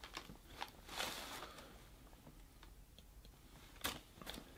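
Faint rustling and a few light clicks of a pair of wrestling trunks being handled, with a short sniff just before the end as the fabric is held to the nose.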